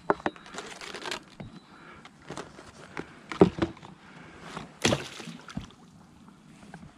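Handling noises from gear and a plastic duck decoy in an inflatable boat: a string of knocks, clatters and rustles. About five seconds in the decoy is tossed onto the water and lands with a splash.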